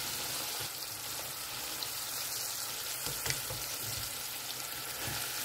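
Steady sizzle of batter-coated chicken pieces deep-frying in hot oil in a saucepan, on the second, hotter fry. There is a light knock about three seconds in.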